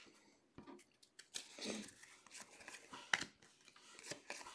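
Faint rustling and light clicks of football trading cards being flipped through in the hands.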